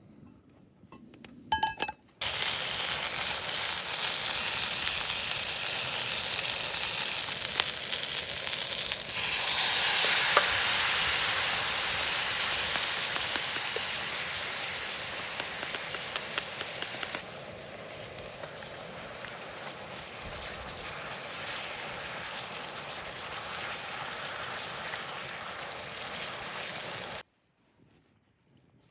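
Food sizzling in a frying pan: a steady crackling hiss that starts suddenly, swells louder about ten seconds in, drops to a quieter sizzle a few seconds later and stops abruptly near the end.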